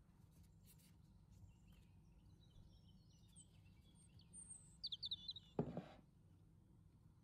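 Faint handling sounds as small whole potatoes are set down into a metal roasting pan among chicken pieces and carrots, with one louder soft thud a little past halfway. Faint high chirps come just before the thud.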